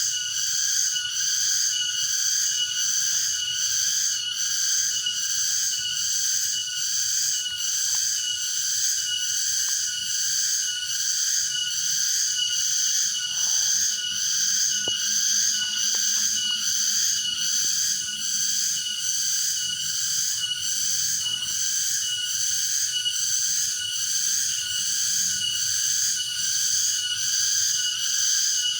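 Cicadas singing in a continuous high-pitched, evenly pulsing drone, the insect chorus typical of the dry season.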